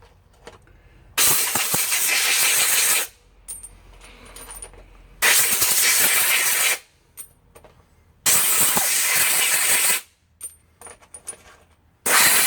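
Four blasts of compressed air, each about one and a half to two seconds long, blowing trimming filings out of .270 Winchester brass cases. Light clinks of the brass cases being handled come between the blasts.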